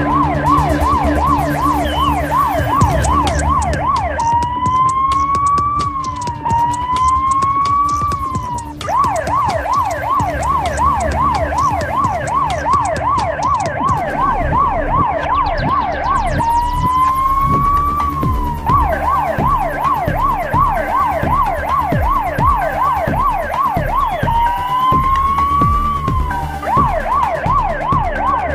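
Police car siren in fast yelp mode, switching several times to pairs of slow rising sweeps before returning to the yelp, over the low rumble of the car travelling at motorway speed.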